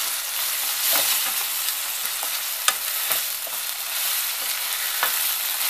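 Chicken pieces in black bean and soy sauce sizzling in a frying pan while being stirred and turned with a silicone spatula, a steady hiss with a few sharp clicks.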